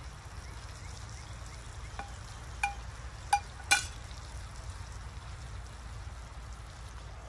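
Food frying in a pan with a steady sizzle, while a utensil stirs it and strikes the metal pan four times, ringing clinks about 2 to 4 seconds in, the last the loudest.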